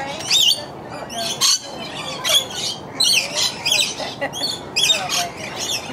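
A group of birds squawking and calling close by, short high-pitched shrill calls that overlap and come about two a second.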